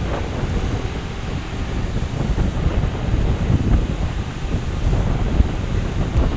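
Wind buffeting the microphone: a loud, gusty rumble with a steady hiss over it.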